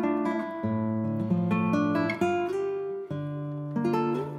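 Background music: acoustic guitar picking a gentle melody.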